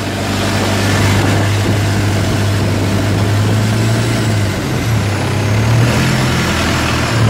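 Long-tail boat's engine running steadily under way, with water rushing past the hull. The engine note wavers briefly about two-thirds of the way through, then steadies again.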